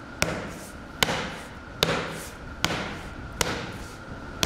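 Hand hammer striking a cut rubber sole piece laid on a stack of glued EVA sole sheets, six even blows about one every 0.8 s, pounding the glued layers together. A faint steady high hum runs underneath.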